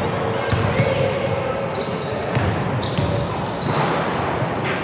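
Basketball play on an indoor court: sneakers squeaking briefly and repeatedly on the floor over the general noise of the game, with a sharp bounce or thud near the end.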